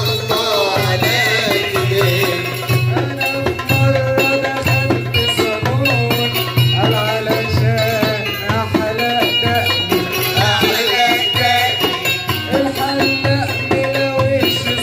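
Port Said simsimiyya folk music played live: the plucked simsimiyya lyre carries a rhythmic melody over a steady percussion beat, with a singer's wavering vocal line.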